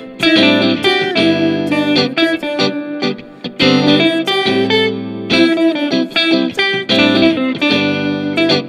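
Electric guitar improvising short single-note phrases in the A minor pentatonic scale, over a recorded two-chord backing. The lead drops away briefly a little past three seconds in.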